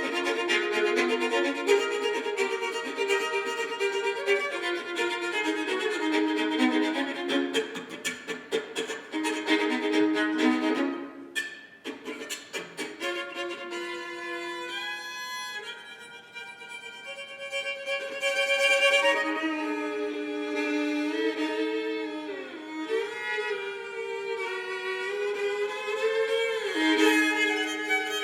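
Solo fiddle in sawmill tuning, its lower two strings raised a whole step so the open strings ring together. It plays quick bowed double stops for the first half. After a brief break it moves to slower held notes with sliding pitch changes.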